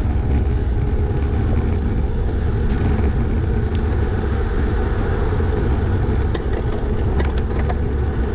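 Steady rush of wind and road noise on a bike-mounted camera's microphone while riding a road bike, with a few faint clicks.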